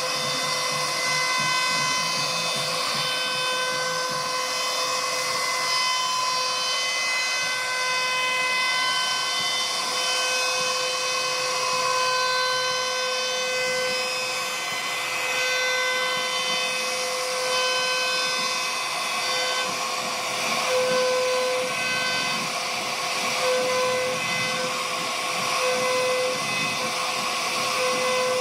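CNC router spindle running with a steady high whine while its bit cuts wood, a rushing cutting noise underneath.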